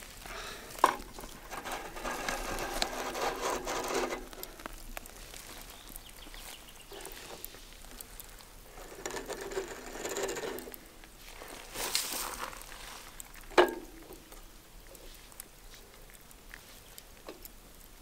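Quiet clicking and rustling as food is set on and shifted across a charcoal grill's metal grate with metal tongs, with two sharper clicks, one about a second in and one later on.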